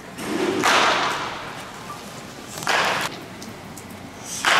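Baseball batting practice in a netted cage: three loud hits about two seconds apart, each a sudden thump with a brief whoosh trailing off.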